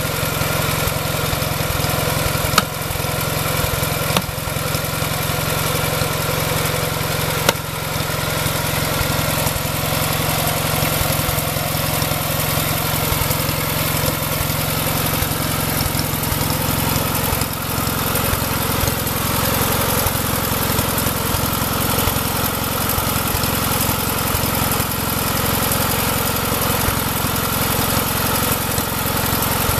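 Tractor engine driving a wood splitter, running steadily at idle. A few sharp knocks in the first eight seconds, the loudest about two and a half seconds in.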